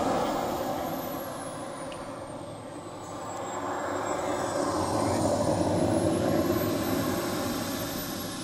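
Electric ducted-fan model jet, a scale F-104 Starfighter, taxiing: a high fan whine over a steady rush of air. The whine sinks in pitch for the first few seconds, then climbs and grows louder, and falls again near the end.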